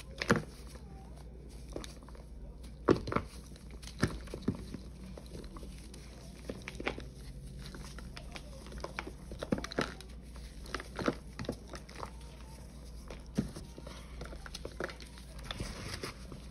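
Gloved hands crushing and crumbling a dried paste ball of Ajax cleaning powder mixed with Pine-Sol and Palmolive, then raking through loose powder: irregular soft crunches and crumbling, with a few sharper cracks, the strongest near the start and about three seconds in.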